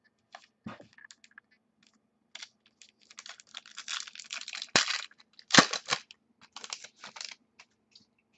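A foil trading-card pack handled and torn open by hand. The wrapper crinkles and crackles, with the loudest tearing rasps about five seconds in, and a few light clicks of handling at the start.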